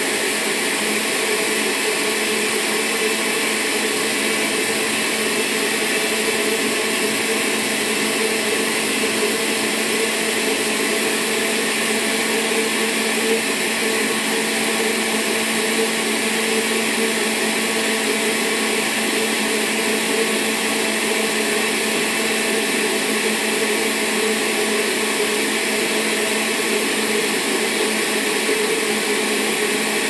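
Countertop blender running steadily at one speed, beating eggs while oil is drizzled in through the lid opening.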